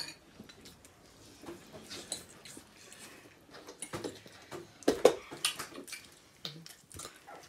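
Two people slurping and chewing noodles, in scattered short wet bursts with the odd fork clink on a bowl; the loudest slurp comes about five seconds in.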